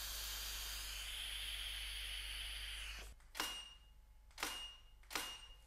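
A long, slow breath exhaling vape smoke, a steady hiss that stops about three seconds in. Then the shutter of a Canon EOS 5D Mark III clicks three times, about a second apart, each click followed by a short high beep.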